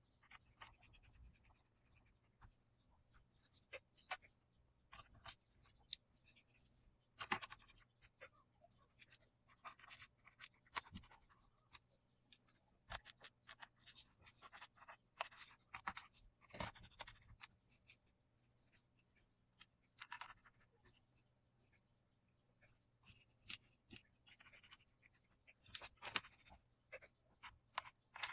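Small T6 Torx screwdriver turning screws into a laptop's back cover: faint, irregular clicks and scratchy scrapes of the bit and screws.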